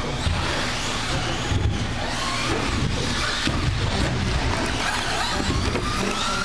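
Electric RC short-course trucks racing on an indoor carpet track: the motors and gears whine, rising as the trucks speed up, over a steady scrub of tyres, with a few sharp knocks as the trucks hit and land off the plywood jumps.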